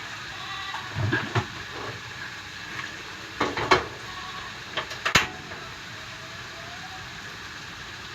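Small dried anchovies frying in oil in a pan with a steady sizzle, punctuated by about half a dozen sharp clanks of kitchen utensils against metal.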